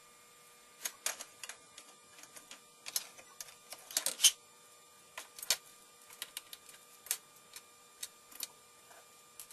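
Irregular plastic clicks and taps from a Nerf DT3 pistol being handled and worked on, some single and some in quick clusters, loudest about four seconds in. A faint steady whine runs underneath.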